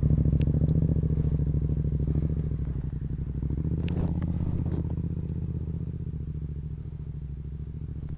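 Motorcycle engine running at a low, steady note that slowly fades, with a couple of faint clicks.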